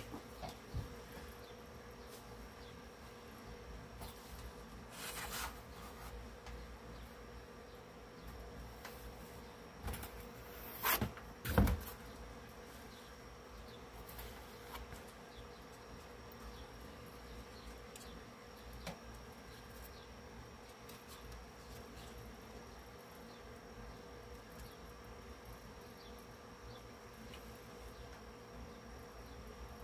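A steady buzzing hum, with short louder noises about five seconds in and again around eleven seconds.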